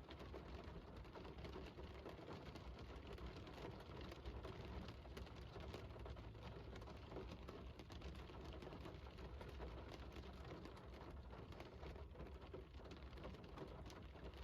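Faint, steady rain falling, with many small drops ticking on a surface.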